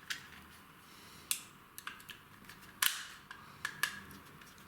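Light, sharp clicks from hand tools and cable ends being worked on a one-way light switch's terminals, coming irregularly about half a dozen times, the loudest about three seconds in.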